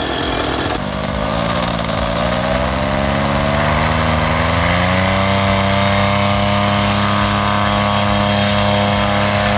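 Paramotor engine and propeller opened up from idle about a second in, the pitch climbing in steps to full power and then held steady at high revs for a foot-launch takeoff run.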